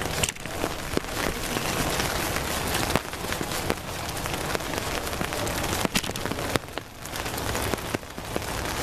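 Steady rain falling, with many sharp ticks of drops striking umbrellas close by.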